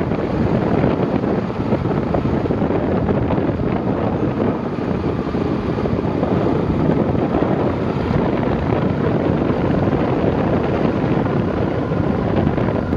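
Steady rush of wind buffeting the microphone of a camera mounted on a moving vehicle, with the vehicle's running noise blended underneath.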